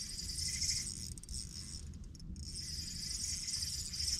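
Light spinning reel whirring as a fish is reeled in, with short pauses in the cranking, over a low steady rumble.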